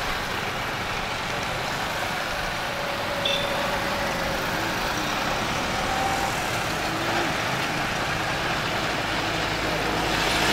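Road traffic: cars and motorcycles driving over a steel bridge, a steady running noise that grows a little louder near the end.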